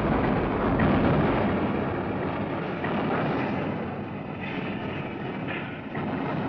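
A dense, steady rumble with a few faint sharp cracks, slowly fading.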